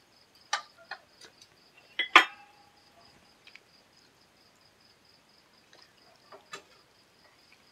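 Scattered clicks and clinks of dishes and food being handled for a meal, the loudest a ringing clink about two seconds in, a few softer taps near the end. Behind them runs a steady, high, pulsing cricket trill.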